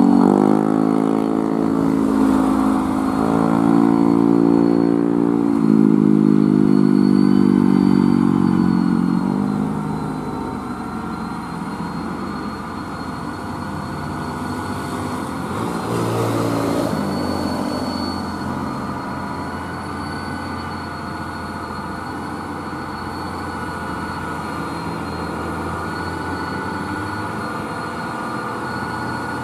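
UD Quester heavy diesel trucks' engines roaring as they labour slowly up a steep climb under a load of steel rebar. The engine note is loudest and shifts in pitch for about the first ten seconds, then drops to a quieter, steadier drone.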